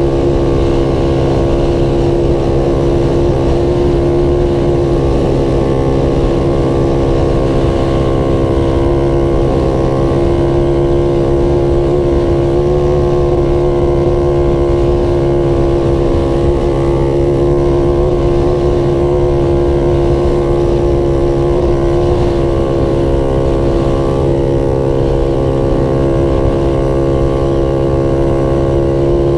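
Off-road vehicle's engine running at a steady cruising speed across sand, its pitch holding almost level, over a constant low rumble.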